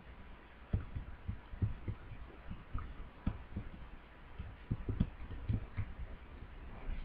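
Typing on a computer keyboard: a run of irregular, faint key taps, with a short pause about halfway through.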